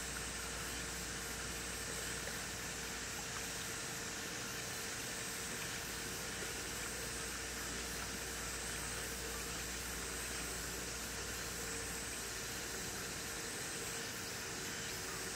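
Steady hissing background noise with a faint constant hum and no distinct events.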